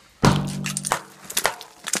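Hammer smashing thick ice frozen over an engine: one heavy blow about a quarter second in with a short low ring, then several sharper cracks and clinks of breaking ice.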